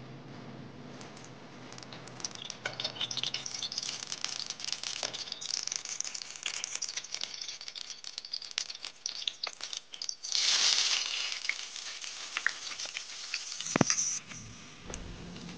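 Cooking oil crackling and spitting in a wok as it heats. About ten seconds in, a loud sizzle as potato pieces go into the hot oil, then a single knock near the end.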